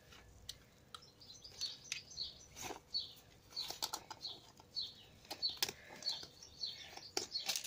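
Small bird chirping over and over, with scattered clicks and rustles from handling a fabric webbing pouch and the airsoft magazines inside it.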